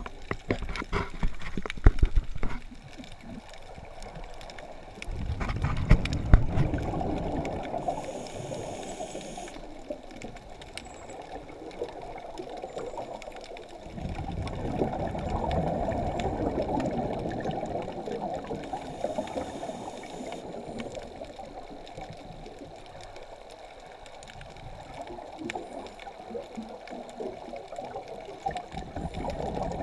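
Scuba regulator breathing underwater: long gurgling rushes of exhaled bubbles, with a short hiss of inhalation between them twice. A few sharp clicks come in the first couple of seconds.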